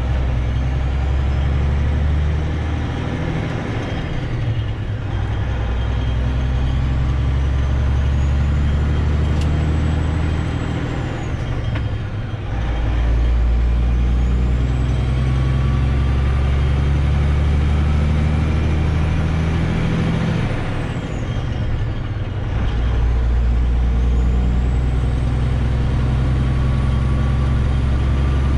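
Semi truck's diesel engine running under way, its low note breaking off and resuming lower three times, about every eight seconds.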